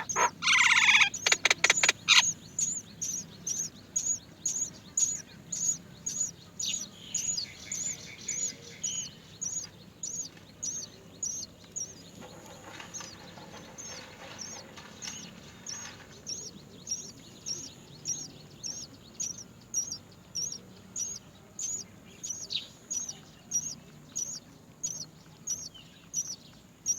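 Great myna nestlings begging: a high, thin chirp repeated about twice a second, with a louder harsh burst of calls in the first two seconds.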